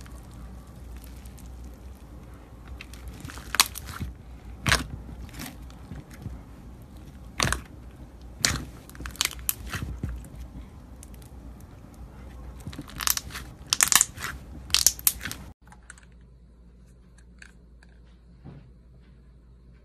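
Crunchy slime being squeezed and pressed, giving irregular sharp crackles and pops, thickest shortly before the change. About three-quarters of the way through, the sound cuts abruptly to a much quieter stretch with only faint scattered clicks.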